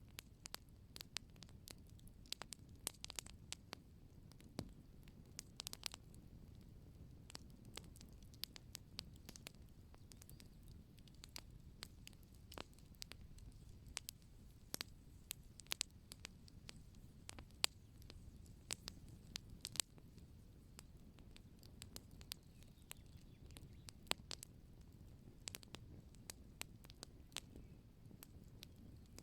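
Wood fire crackling: many sharp, irregular pops and snaps over a low, steady rumble.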